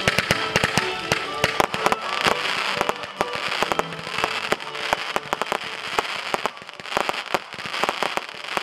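Fireworks fired from the ground, going off in many sharp bangs and crackles in quick, irregular succession over a steady hiss.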